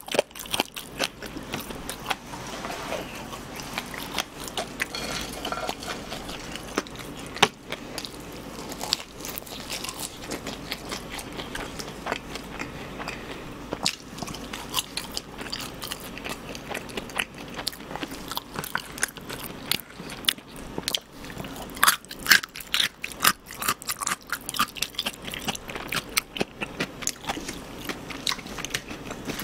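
Close-miked chewing of crispy fried chicken and french fries: a steady run of wet chewing with many small crackling crunches, thickest in a burst about three quarters of the way through.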